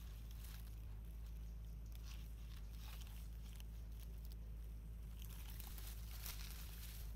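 Light crinkling and crackling of a thin plastic bottle and dry leaves as a baby monkey grips and turns the bottle, with a cluster of crackles about six seconds in. A steady low hum runs underneath.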